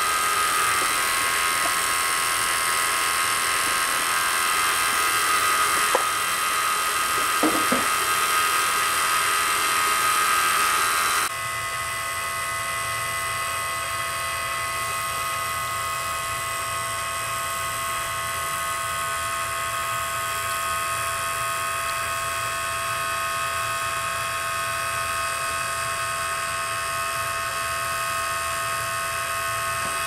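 Refrigeration vacuum pump running steadily with a high whine while it evacuates the air conditioner's refrigerant lines. About eleven seconds in, the sound switches abruptly to a quieter, lower steady machine hum.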